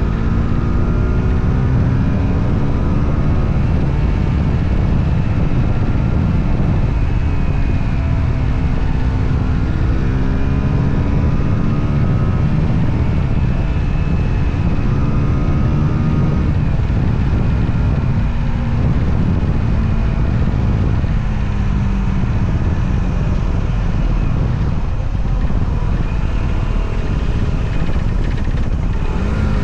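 Motorcycle engine running under way, its revs rising and falling over and over, with a sharp climb in revs near the end.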